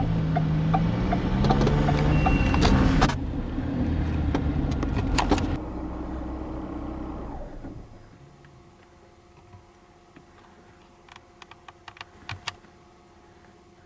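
Car sound with a regular light ticking about three times a second. It drops away in steps over the first eight seconds to a faint steady hum with a few light clicks near the end.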